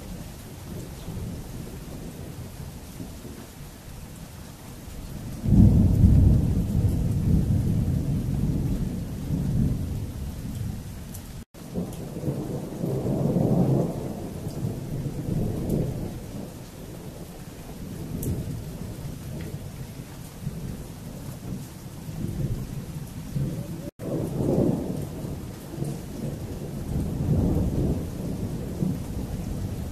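Thunder rumbling in long, low rolls. A loud peal breaks about five seconds in and rumbles on, and further rolls swell near the middle and again later.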